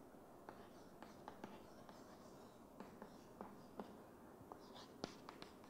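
Chalk writing on a chalkboard: faint, irregular taps and short scratches as the chalk strikes and drags across the board.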